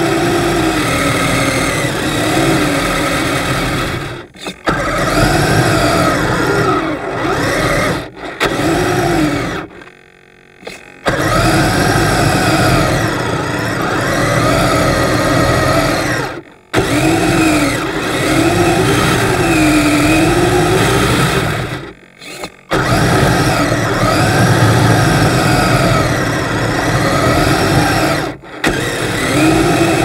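Upgraded electric drive motors and gearboxes of a Kyosho Blizzard RC snowcat on metal tracks whining, the pitch rising and falling with the throttle as its front blade pushes snow. It stops briefly several times, longest about ten seconds in.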